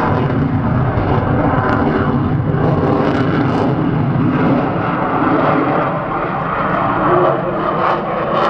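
Loud, steady jet noise from a Eurofighter Typhoon's twin turbofan engines in a display flypast, easing slightly about six seconds in.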